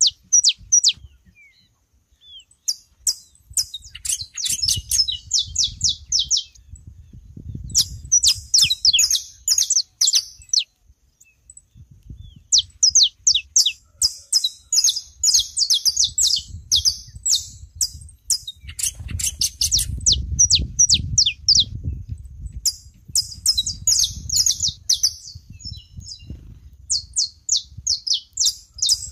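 Saffron finches singing: repeated phrases of rapid, high chirping notes a few seconds long, with short pauses between phrases.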